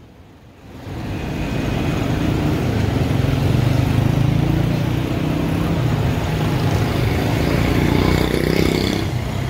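Steady low rumble of busy street traffic with motor vehicles, fading in over the first second or two.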